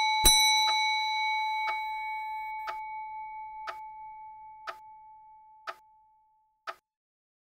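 A clock's chime bell is struck once about a quarter second in, the last of three quick strokes, and its ring slowly fades away over about six seconds. Under it a clock ticks steadily, once a second.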